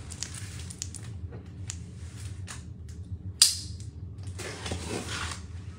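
Off-camera handling noise: scattered clicks and rustling, with one sharp loud click about three and a half seconds in, over a steady low hum.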